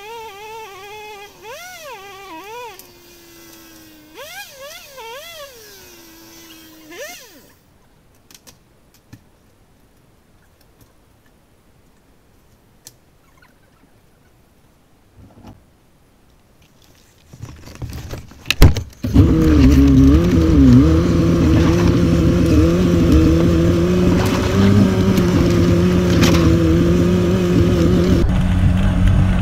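An engine revving up and down in short blips, then after a quiet stretch and a few knocks, an engine running loud and steady with a slightly wavering pitch.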